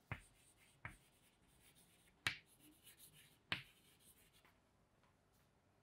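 Chalk writing on a chalkboard: faint scratching broken by a few sharp taps of the chalk against the board, the last about three and a half seconds in.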